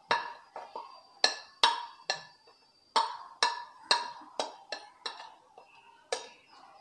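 A steel spoon tapping and scraping against a ceramic plate and a steel pan as spice powders are pushed into the pan: a dozen or more sharp clinks at irregular intervals, each ringing briefly.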